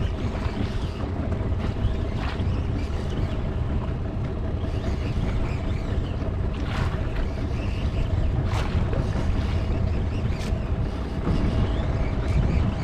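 A boat engine running steadily, a constant low rumble with wind on the microphone. A few short clicks come through over it.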